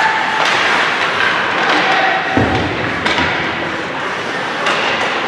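Crowd noise at a game in a large indoor venue: steady mixed voices and calls, with one heavy thud about two and a half seconds in.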